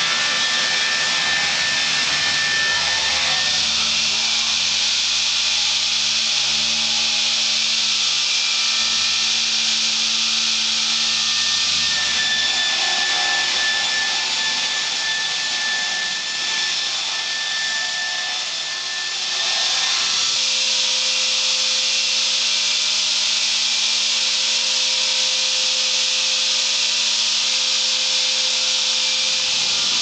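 Horizontal log sawmill cutting lengthwise through a log: a steady, loud, high hiss of the blade in the wood over the even hum of the saw's motor, the sound shifting for several seconds around the middle before settling back.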